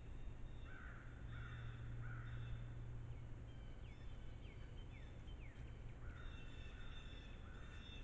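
A crow cawing in two series of three harsh caws, one near the start and one near the end, with smaller birds chirping in between over a steady low hum.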